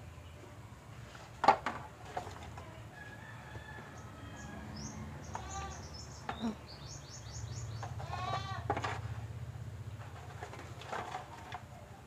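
A rooster crows twice, about halfway through and again about three seconds later, with short high bird chirps between the crows. A sharp clatter of charcoal lumps being handled comes about a second and a half in, and again briefly near the end.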